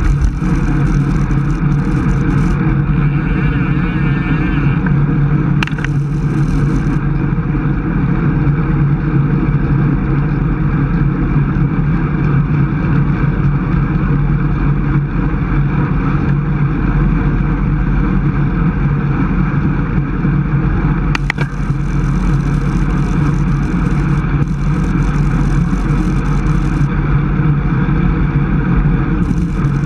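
Steady rush of wind and road noise on a bicycle-mounted camera's microphone while riding at about 24 mph, strongest in the low end, with a brief click twice.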